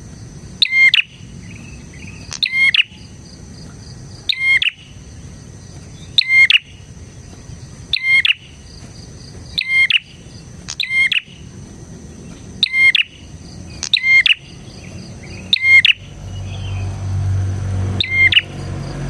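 A prenjak (prinia) gives loud, sharp, ringing calls over and over, about one every second or two. A steady high-pitched tone runs underneath, and a low rumble comes in near the end.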